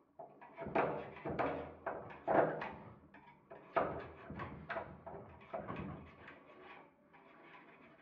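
A thin rod poked and worked inside a drilled-out euro lock cylinder, giving an irregular run of knocks, scrapes and rattles against the metal of the lock, loudest in the first few seconds.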